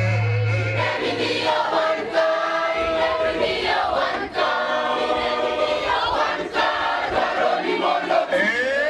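A church choir of many voices, mostly women, singing a Luo hymn together, with crowd noise around them.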